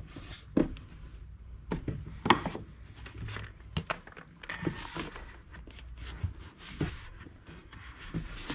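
Paperback manga volumes being lifted out of a bookshelf and set down on the shelf below: scattered knocks and thuds as books hit the shelf and each other, with brief rubbing and sliding of covers against one another.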